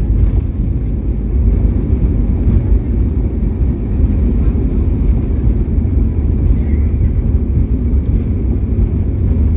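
Steady low rumble of a Volaris jet airliner heard from inside the passenger cabin, engine and airframe noise during the landing roll or taxi.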